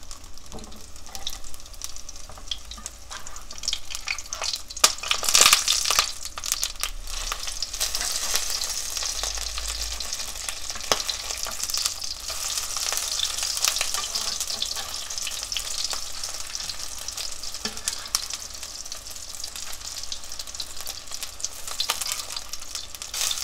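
Egg-battered oysters sizzling and crackling in hot oil in a frying pan, a steady hiss that flares up loudest about five seconds in.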